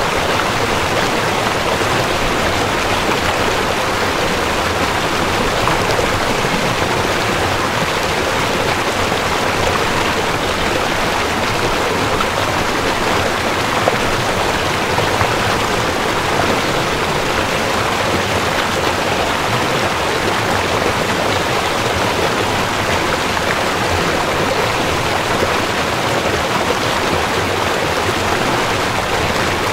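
River water rushing steadily over rocks, a loud even flow with no breaks.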